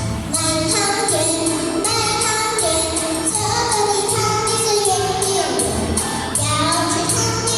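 A sung vocal performance over a musical backing with a steady beat.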